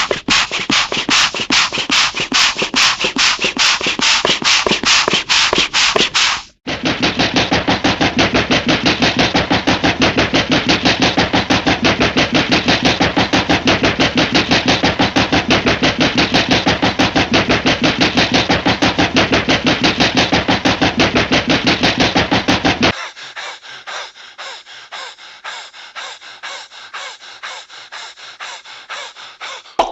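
Old cartoon sound effects played in a row: a rapid, even clattering that stops about a fifth of the way in, then a louder, denser continuous rattle, which breaks off about three-quarters of the way through into a fainter, thinner rattling.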